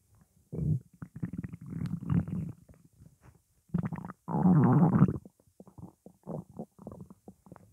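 Hungry human stomach growling and gurgling: a run of irregular gurgles, the longest and loudest lasting nearly a second about four and a half seconds in, followed by a string of short gurgles.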